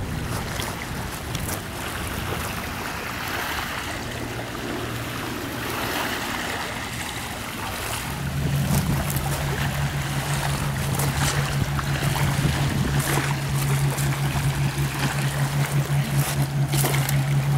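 Wind and small waves lapping at a pebble shore, with the steady low drone of a motorboat engine that comes in strongly about halfway through and carries on.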